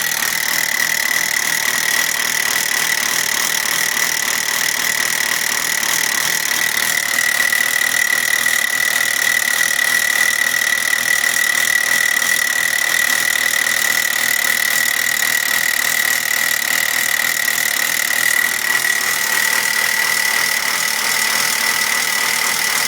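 Volkswagen Jetta's 1.9 L ALH TDI four-cylinder diesel idling very roughly, with a steady high whine over the running engine. The engine's timing has been severely retarded.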